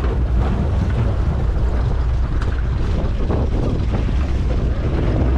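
Wind buffeting the microphone in a steady low rumble, with choppy sea water sloshing against the boats' hulls.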